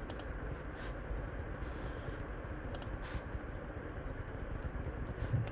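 A few sparse clicks at a computer keyboard and mouse, spread a second or more apart, over a steady low background hiss.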